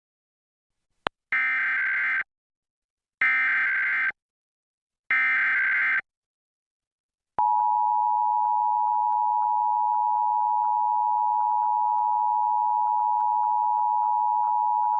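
Emergency Alert System SAME header: a click, then three identical bursts of harsh data warble, each just under a second long and about a second apart, followed about seven seconds in by the EAS two-tone attention signal, a steady dual tone. Together they announce an EAS alert, here a statewide test.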